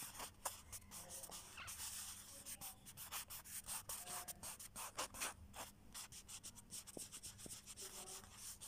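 Small paintbrush stroking blue paint over card paper: faint, quick, scratchy brush strokes, over a low steady hum.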